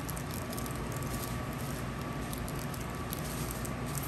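Small plastic baggies being handled and opened: faint crinkling and light ticks over a steady background hum.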